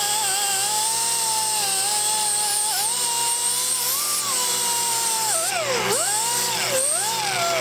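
Right-angle air die grinder spinning a small wire wheel, scrubbing a cast metal part. Its high steady whine sags in pitch and recovers each time the wheel is pressed into the work, with several deep dips in the second half.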